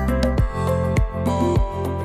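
Background music: held notes over a steady beat, a little under two beats a second.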